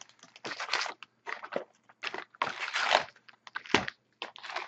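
Cardboard and pack wrappers crunching and crinkling in short irregular bursts as a sealed box of hockey trading cards is torn open and its packs taken out, with a soft knock about four seconds in.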